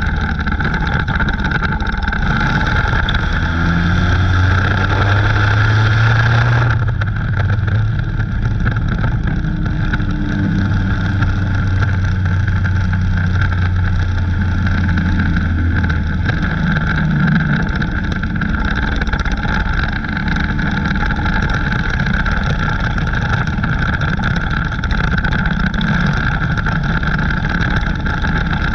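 Dirt-track race car's engine running hard at racing speed, heard from inside the cockpit. The note climbs over the first few seconds, changes abruptly about seven seconds in, then rises and falls with the throttle through the laps.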